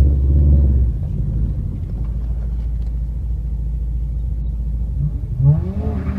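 Car engine running with a deep, steady rumble, louder for the first second, then a brief rev with rising pitch about five and a half seconds in.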